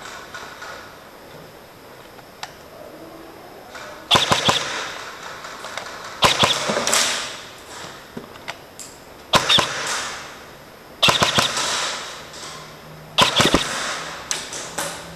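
Airsoft electric rifle (AEG) fired in about six short bursts, roughly every two seconds. Each burst is a quick run of sharp snaps with a ringing echo from the large hall.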